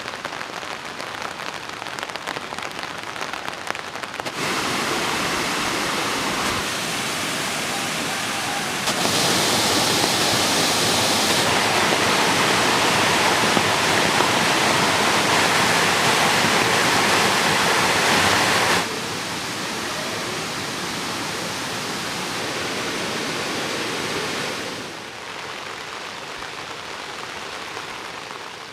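Heavy rain falling in an even hiss. Its loudness jumps up and down in steps several times and is loudest through the middle.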